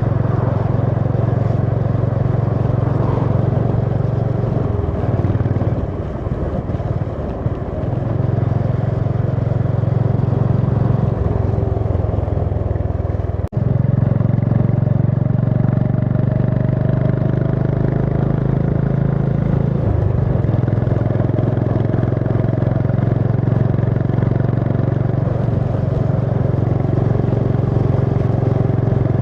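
Honda CB350 H'ness's air-cooled single-cylinder engine and exhaust running steadily while riding. The engine note eases for a couple of seconds about five seconds in, then picks up again. The sound cuts out for an instant near the middle.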